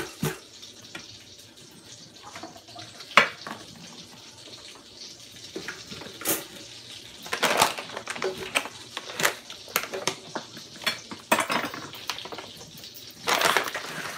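Scattered clinks, clacks and knocks of dishes and utensils being handled at the stove and counter, the sharpest about three seconds in, with a longer rustle shortly before the end.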